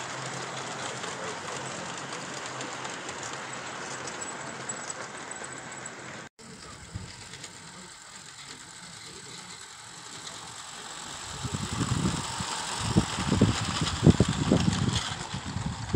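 Gauge 1 model freight train running on garden track: a steady rattle of wagon wheels on the rails, then, from about eleven seconds in, a louder, uneven clatter as the wagons pass close by.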